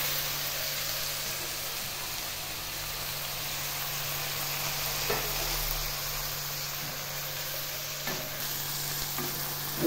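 Sliced onions and green peppers sizzling steadily as they fry in a stainless steel pot on a gas stove, stirred with a spoon, with a couple of light knocks.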